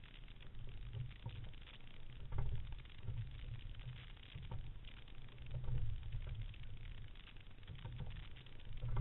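Water and wind noise on a camera mounted on the deck of a rowing single scull: low irregular thumps about every second or two, with faint splashes from the sculls' blades at some strokes.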